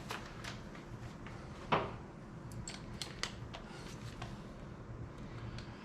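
Scattered light clicks and taps of hand tools and parts being worked loose from a car's heater box, with one sharper knock a little under two seconds in, over a steady low hum.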